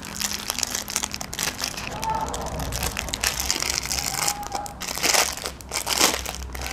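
Clear plastic packaging crinkling and crackling in the hands as the packet is handled and opened to take out the arm sleeves, with a few louder crackles near the end.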